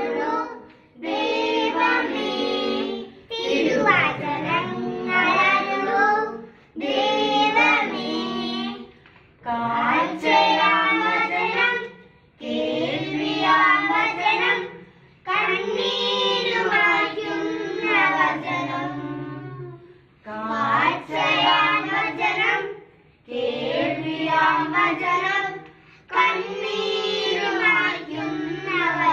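Children and two women singing a hymn together, unaccompanied, in short phrases of two to three seconds with brief breaths between them.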